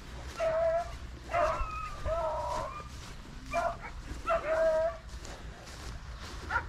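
Beagle hounds baying on a rabbit hunt: a string of about six high, drawn-out yelping calls, with a longer wavering one about two seconds in.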